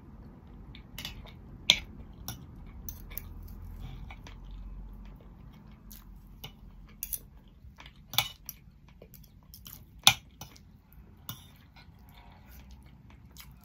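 Metal fork and knife clinking and scraping on a plate while cutting up a roast dinner, with chewing. The clinks are scattered and sharp; the loudest come near two seconds in and about ten seconds in.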